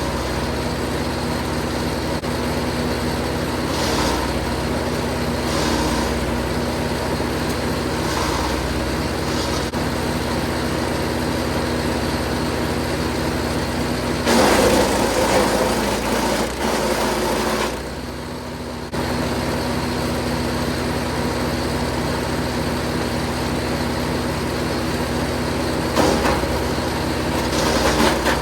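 Jansen 1500e GTS wood chipper's engine running steadily. About halfway through a louder, rougher burst of chipping lasts about three seconds as a branch is fed through and shredded, with shorter bursts early on and near the end.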